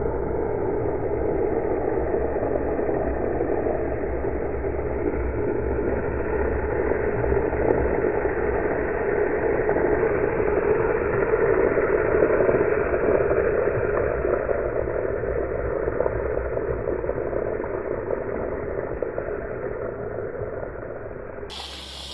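Longboard's urethane wheels rolling and sliding on asphalt: a steady, muffled rushing that grows louder toward the middle as the rider passes close by, then fades.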